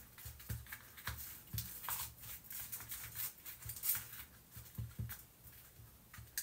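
A metal teaspoon scraping and tapping inside foil-lined paper cupcake cases as it presses a buttered crushed-biscuit base down firmly: an irregular run of small scrapes and clicks, several a second, each with a soft thump.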